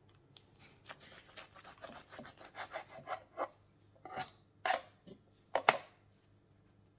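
Kitchen knife sawing through a seeded-bread sandwich on a plastic cutting board: a quick run of short cutting strokes, then a few louder knocks of the knife on the board, the loudest about five and a half seconds in.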